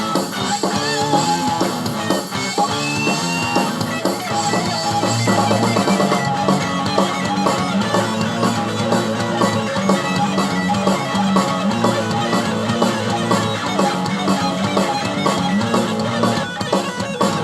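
Rock music with guitar and drum kit.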